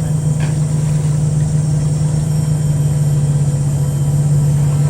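4x4 vehicle's engine running with a steady low drone.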